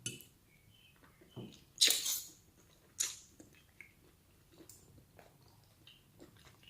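Eating close to the microphone: chewing with a few short, sharp crunching or smacking sounds between quieter stretches.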